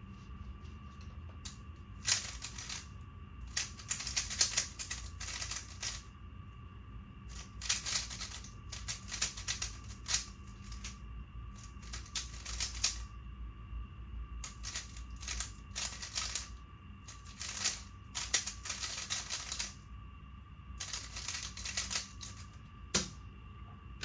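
Plastic 3x3 speedcube being turned rapidly in a blindfolded solve: bursts of clicking, each a second or two long, separated by short pauses. Near the end a single knock as a cube is set down.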